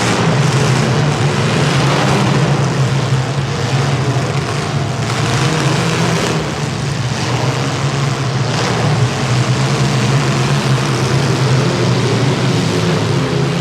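Compact demolition-derby cars' engines running hard together in a steady loud drone, with a few short bangs around the middle.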